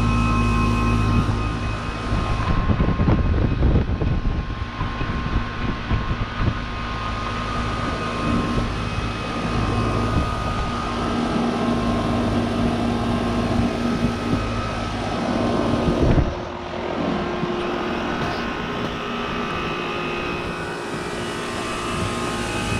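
2006 Goodman CPLE heat pump outdoor unit running, a steady hum from its compressor and fan with several held tones. Irregular crackling noise comes over it in the first few seconds, and the level dips briefly about sixteen seconds in.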